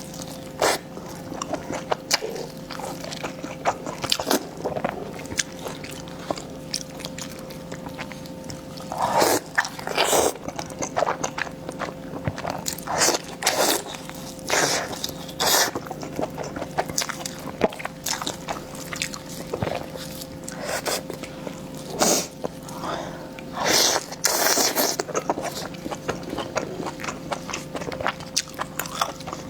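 Close-miked eating: a person chewing and biting food, with many small wet clicks and several louder, noisier bites and mouthfuls. A faint steady hum runs underneath.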